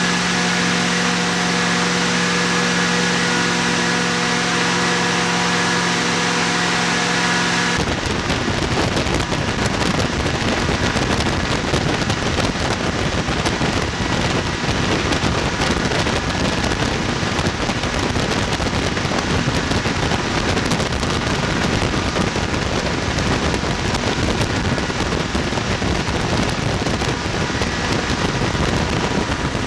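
BMW S62B50 V8 idling steadily in the rally car on the dyno. About eight seconds in, the sound changes abruptly to a loud, rough, even engine noise, heard from inside the stripped cabin, as the engine is held running under load while it is tuned.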